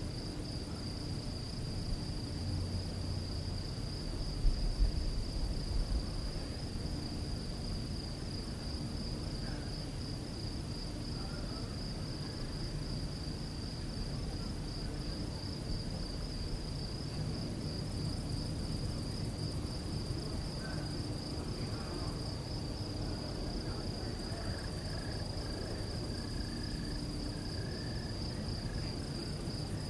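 Crickets chirping in a steady, continuous high trill, over a low rumble, with a few short low thumps about five seconds in.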